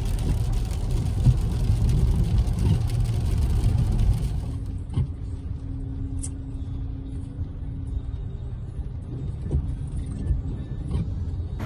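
Road and engine noise inside a 2019 VW T-Cross cabin at motorway speed, a dense low rumble. About four and a half seconds in it cuts to a much quieter cabin creeping onto a ferry's vehicle deck, with a steady low hum for a few seconds and a few faint ticks.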